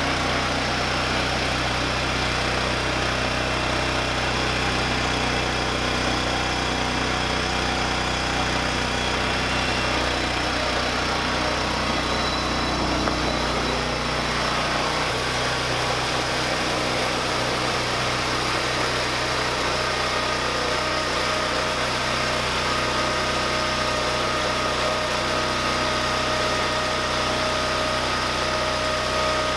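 MTD 990 lawn tractor's small engine running steadily. Its note shifts about halfway through, and a thin steady whine joins in after about two-thirds of the way.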